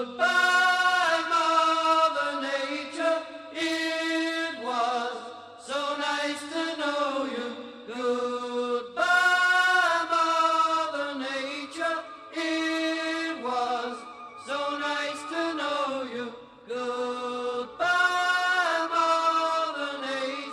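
Music: wordless vocal chanting in held notes, phrase after phrase a second or two long, with little bass beneath.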